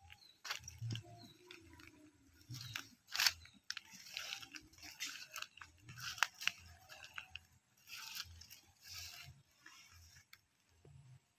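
Irregular crunching and rustling of footsteps and plants brushing through dry grass and leaves close to the microphone, with a few sharp clicks; the loudest crunch comes about three seconds in.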